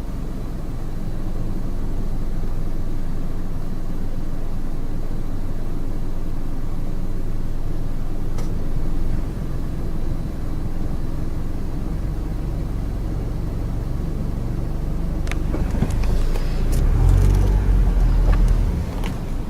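Steady low outdoor rumble, with a cluster of clicks and low knocks from handling the camera and its heavy telephoto lens near the end.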